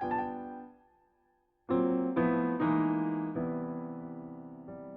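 Background piano music on a keyboard: notes fade out within the first second, then after a short gap a series of struck chords rings and slowly fades.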